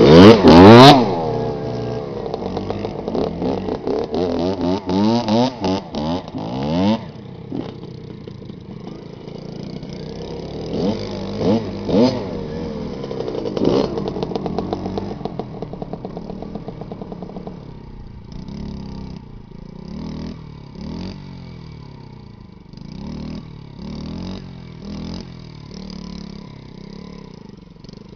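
Small off-road motorcycle engines revving up and down in repeated bursts. The loudest moment, about a second in, is the two-stroke Kawasaki KX 65 revving hard as it rides past close by; from about seven seconds on the engine sound is fainter, with revving bursts as the Honda Monkey climbs the sandy hill.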